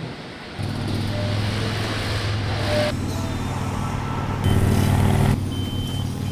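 Motorcycle engine running steadily, starting up about half a second in, with a louder stretch for about a second near the middle. Short high electronic beeps sound twice near the end.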